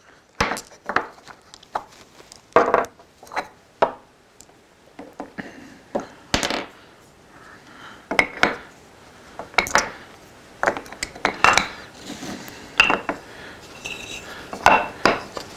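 Metal 1/4-inch drive deep-well sockets clinking against one another and knocking into their wooden holder as they are handled, in irregular separate clinks, some ringing briefly.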